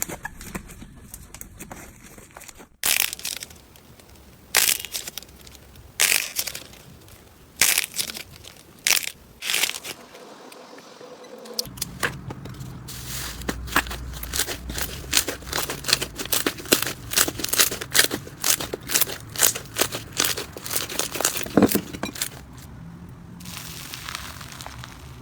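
Slime being squeezed and pressed by hand, crackling and popping. Separate crackles about every second or two at first, then a dense run of rapid crackles from about halfway.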